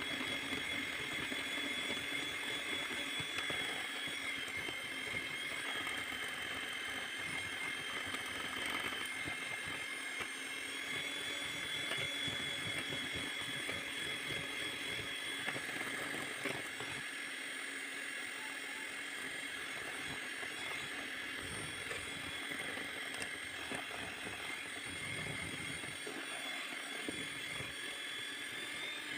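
Electric hand mixer running steadily, its twin beaters whisking cake batter in a steel bowl, a constant motor whine.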